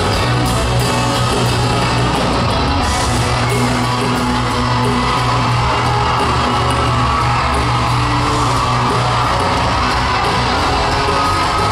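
Live country-rock band playing loud over an arena PA: electric guitar, bass guitar and drums with cymbal crashes, the crowd yelling and whooping over the music.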